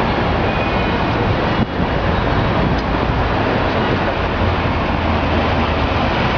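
Steady city street noise of trams and traffic running, with a brief dip in level about one and a half seconds in.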